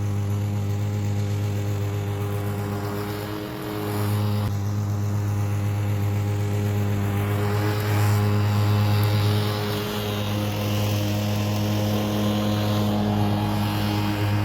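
Masport Rotarola petrol push mower's small engine running steadily under mowing load, its note dipping briefly a couple of times.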